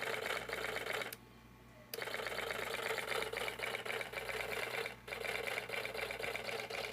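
Homemade miniature motor with tiny pistons running fast with a rapid, even clatter over a low hum. It cuts out for under a second about a second in, then runs on.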